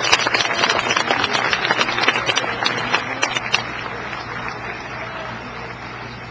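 Audience applauding, the clapping thinning out and fading about three and a half seconds in, leaving a low steady hum.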